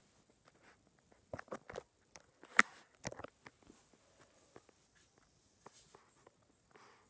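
Scattered rustles and light knocks from a handheld phone being moved and handled close to its microphone, with one sharp knock about two and a half seconds in.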